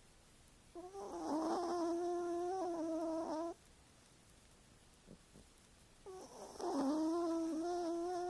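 A cat snoring in its sleep: two long snores about five seconds apart, each held at a steady, whistling pitch with a breathy hiss.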